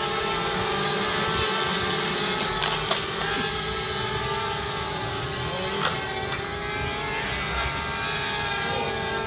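Small quadcopter's electric motors and propellers whining steadily as it hovers low, with two sharp clicks about three and six seconds in.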